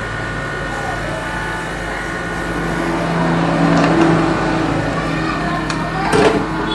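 Steady whir of a hot air rework station's blower while it heats a resistor off a laptop motherboard. It swells a little midway, and there are a few sharp clicks near the end.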